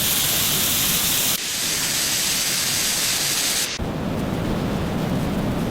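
A steady, loud hiss with no clear tone in it. About four seconds in it turns lower and rougher.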